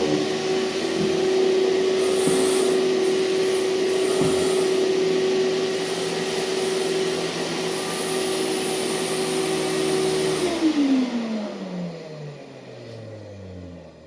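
2003 Hoover TurboPower 5000 canister vacuum motor running with a steady whine, then switched off about ten seconds in. It winds down, its pitch falling steadily over several seconds, a wind-down that is normal for this machine.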